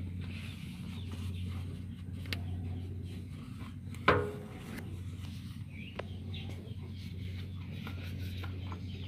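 Chickens clucking faintly over a steady low hum, with one sharp knock about four seconds in.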